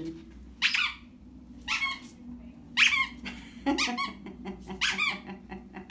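Rubber squeaky dog toy squeezed in short, high squeaks, about six of them roughly a second apart.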